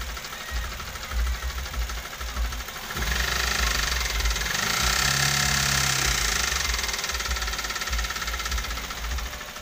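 Toyota Avanza's four-cylinder DOHC VVT-i petrol engine running rough with a harsh, diesel-like sound; about three seconds in it gets louder and rises in pitch, then falls back. The mechanic puts the roughness down to piston slap and a misfire, and judges that the engine must be torn down.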